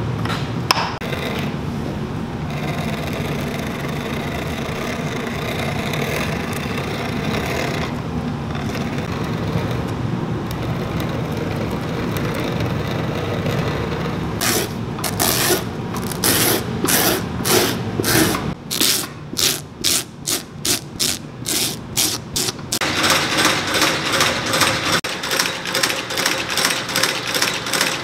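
Cobbler's machine running with a steady motor hum while a boot's new leather welt is fed through it. About halfway in, it changes to rhythmic mechanical strokes, uneven at first, then settling into a fast, even clatter of about four strokes a second near the end, as a stitching machine works.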